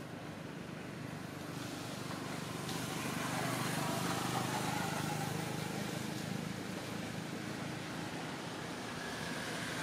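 A motor vehicle passing, its engine and road noise swelling to a peak about four seconds in and then easing off.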